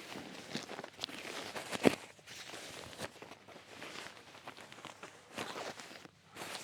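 Rustling and scuffing of nylon sleeping gear as it is handled and spread out on an air mat, in irregular bursts, with one sharp knock about two seconds in.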